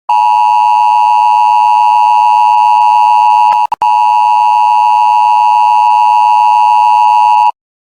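Emergency Alert System attention signal: a loud, steady two-tone alarm that cuts out for a moment about three and a half seconds in, then stops shortly before the end.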